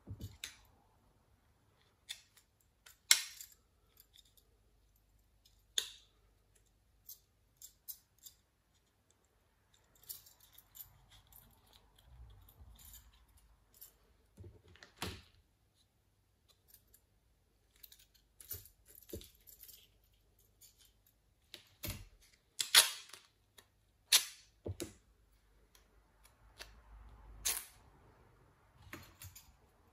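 Scattered clicks and taps of a laptop cooling fan and copper heat-pipe heatsink being handled and taken apart by hand, with some soft rustling between, the sharpest taps a few seconds in and again past the middle.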